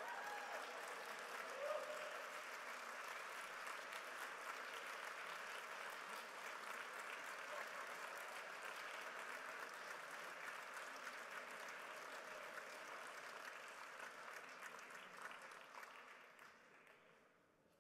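Audience applauding steadily, the applause dying away near the end.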